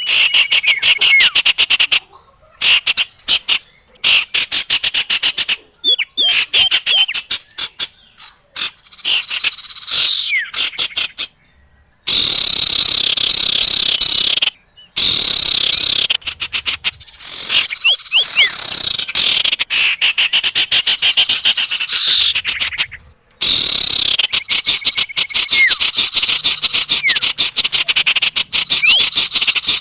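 Bird-lure recording of small songbird calls, sirtu and common iora: long runs of rapid, dry chattering, broken by short pauses, with a few brief whistled notes.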